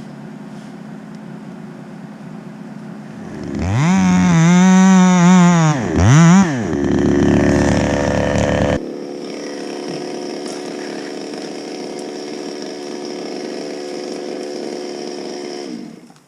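Two-stroke chainsaw running at idle, then revved to full throttle for about two seconds. It drops back, is blipped once more, then idles steadily and cuts off just before the end.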